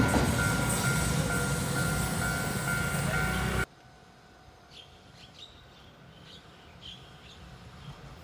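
Level-crossing warning bell chiming in a steady repeating pattern over the fading rumble of a departing push-pull Tze-Chiang express train. The sound cuts off abruptly about three and a half seconds in. After that it is much quieter, with a few faint high chirps and the low rumble of an approaching train building near the end.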